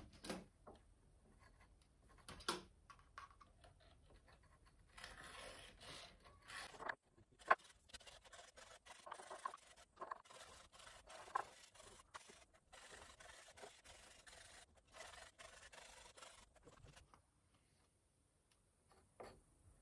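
Wooden stick scraping as it works epoxy resin into cracks in an ash tabletop: faint stretches of scraping strokes with small clicks, fading out near the end.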